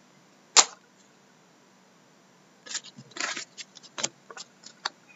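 Trading cards and packs being handled on a wooden table: one sharp tap about half a second in, then a quick run of clicks and rustles in the second half.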